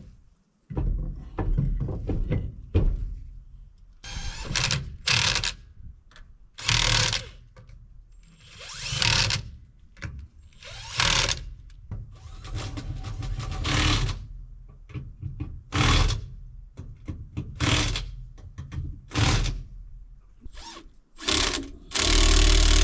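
Power tool running in about a dozen short bursts, one to two seconds apart, as wheels are fastened onto a car; near the end a louder steady noise starts.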